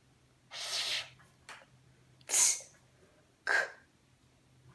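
A child making short, breathy letter sounds: about four separate puffs and hisses with no voice behind them, one a sharp high hiss like an "s".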